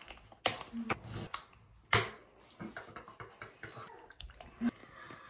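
Plastic skincare tube and caps being handled: a few sharp clicks, the loudest about two seconds in, then softer small ticks and rubbing.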